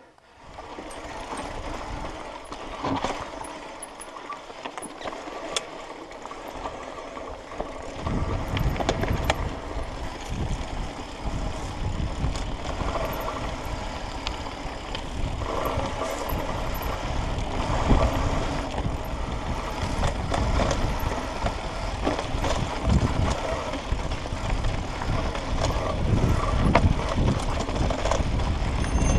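Mountain bike riding down a dirt singletrack, heard from a helmet-mounted camera: wind rumbling on the microphone and tyre noise on the dirt, with scattered knocks from the bike over bumps. The rumble grows much louder about eight seconds in as the bike picks up speed.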